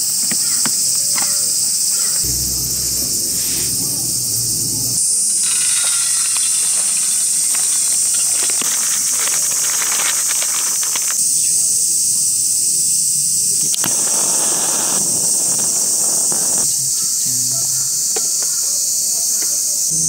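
A loud, steady, high-pitched chorus of summer insects throughout. From about a quarter to halfway through, a dense run of fine pattering clicks as dry rice grains pour into an aluminium mess tin, and a short rushing hiss a little later.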